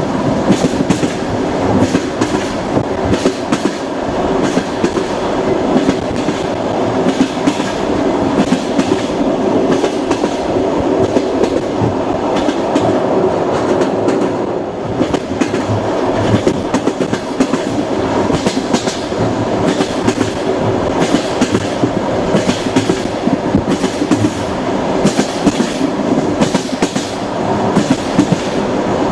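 Passenger train rolling along the track: wheels clacking over the rail joints in a running series of knocks over a steady rumble of the carriage.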